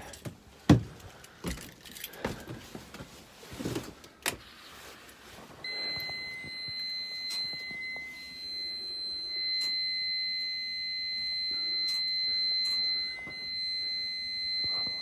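Keys jangling, with a few sharp clicks and knocks over the first few seconds. From about five seconds in, a steady high-pitched whine holds over a low hum until the end.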